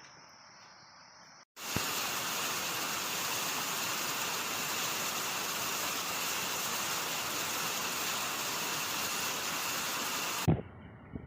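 Loud, steady rush of water that starts abruptly about a second and a half in and cuts off just before the end. Before it, a faint high insect drone.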